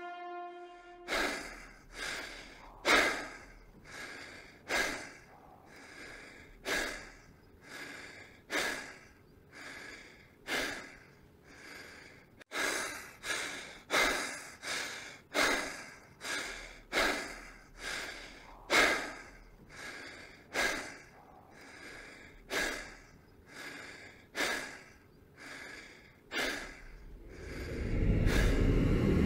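A person breathing heavily in regular, audible breaths, roughly one a second. A held musical tone fades out just at the start, and a low rumble swells in near the end.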